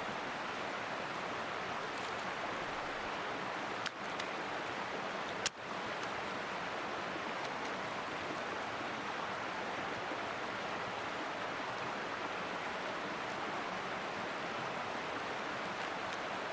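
Mountain stream flowing steadily, a low-water winter stream, with two brief sharp clicks about four and five and a half seconds in.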